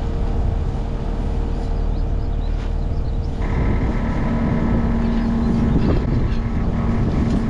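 Skid steer engine running steadily close by; about three and a half seconds in, a higher steady whine joins the engine sound.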